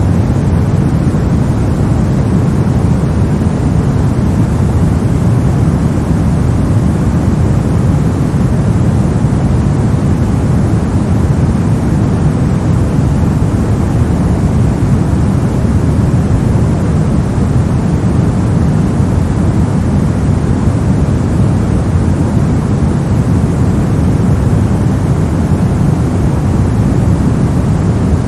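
Soft white noise: a steady, unbroken hiss, weighted toward the low end so it sounds like a deep rushing rumble.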